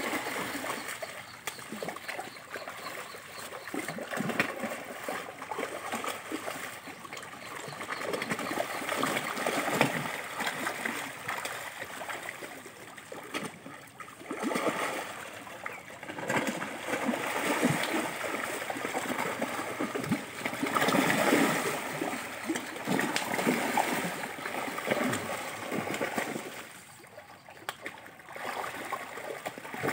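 A school of large fish thrashing and splashing at the river surface, a churning, crackling water sound that comes in surges and drops off briefly near the end.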